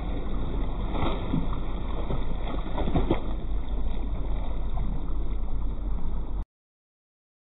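A bottlenose dolphin surfacing and leaping beside the boat, splashing a few times over a steady low rumble and lapping water. The sound cuts off suddenly about six seconds in.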